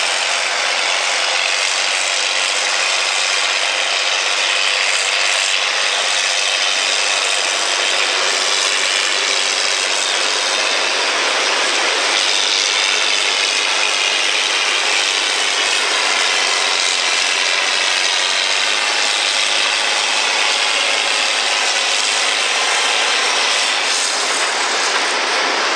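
John Deere farm tractor's diesel engine working under load as it pulls a weight-transfer sled at a steady pace, a constant noisy din with no rise or break.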